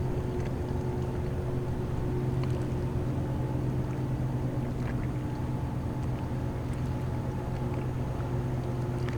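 A boat motor running steadily, a low even hum with a few faint clicks over it.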